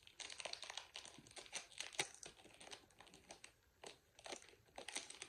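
Small clear plastic packet crinkling as it is handled and worked open by hand: a quick run of light crackles, the sharpest about two seconds in.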